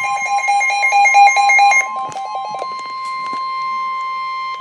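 Emergency alert warning tone: one steady, loud tone held throughout, with a rapid electronic beeping laid over it that stops about two and a half seconds in, and a few sharp clicks. The tone announces a severe thunderstorm warning.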